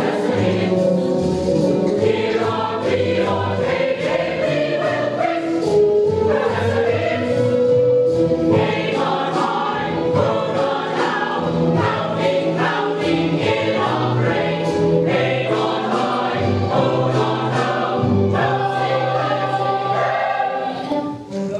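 A chorus of several singers singing a stage musical number with musical accompaniment.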